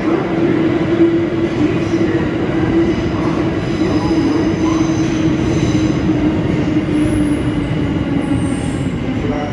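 Tokyo Metro Ginza Line subway train pulling into the underground station and slowing: a steady rumble of wheels on rail with a motor whine that falls slowly in pitch as it brakes.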